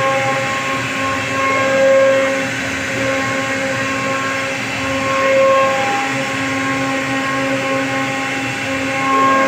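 CNC router spindle running as it carves wood, a steady whine over cutting noise that swells slightly every few seconds as the bit takes more load.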